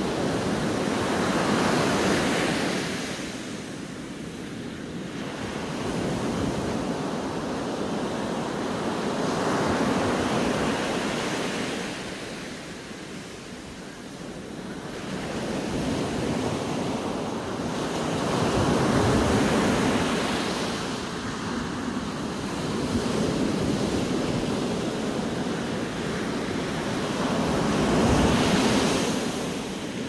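Sea surf breaking on a beach, the rush of water swelling and fading in four surges about eight or nine seconds apart.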